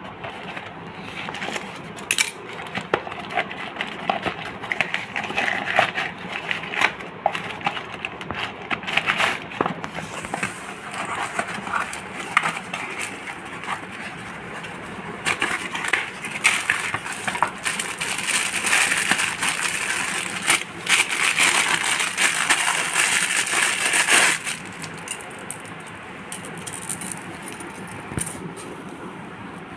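Packaging being handled and torn open: crinkling and crackling with many small clicks, growing denser and louder from about fifteen seconds in and easing off about nine seconds later.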